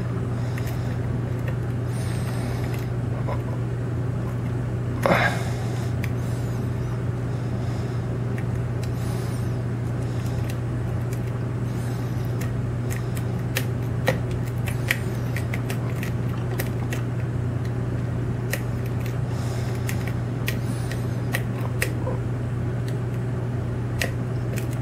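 Lock pick clicking against the pins of a Scandinavian oval pin-tumbler lock cylinder: many small, sharp ticks, more of them in the second half, as pins are probed and set while the lock sits in a deep false set. A steady low hum runs underneath.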